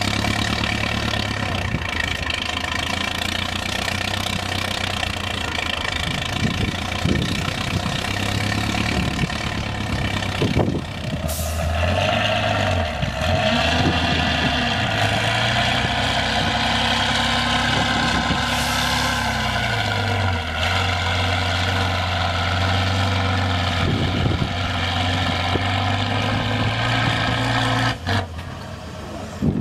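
Heavy off-road trial trucks' diesel engines working under load, the revs rising and falling as they climb. The sound changes abruptly about a third of the way in and again near the end.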